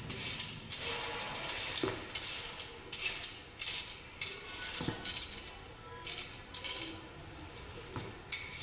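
Stainless steel julienne peeler scraping down a carrot, cutting it into thin strips: quick repeated strokes, about two a second, with a couple of short pauses.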